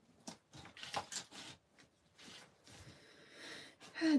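Paintbrush working on a sheet of paper: irregular soft scratchy strokes and light taps, with handling rustles as the hands lift off the page.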